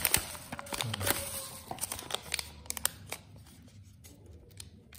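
Plastic bubble wrap crinkling and rustling as it is handled and pulled away by hand, with many small sharp crackles, thinning to a few soft plastic crinkles in the second half.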